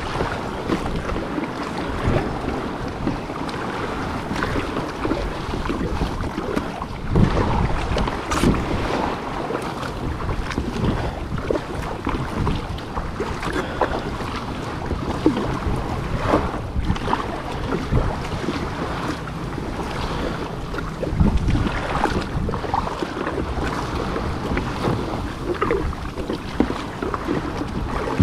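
Wind buffeting an action camera's microphone on open sea, over water sloshing and splashing around a paddled sea kayak, with a few louder splashes or gusts.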